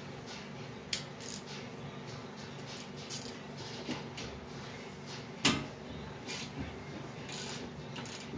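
Hand tools at work on a rear brake caliper: a ratchet wrench being fitted to and worked on a caliper bolt, giving scattered metallic clicks and knocks, the sharpest about five and a half seconds in.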